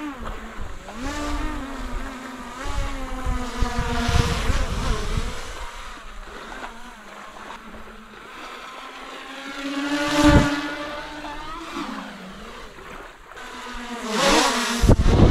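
Quadcopter drone's propellers whining as it flies back in on low battery, the pitch bending up and down as it manoeuvres and growing louder as it passes close about ten seconds in and again near the end. Rushes of wind on the microphone come and go underneath.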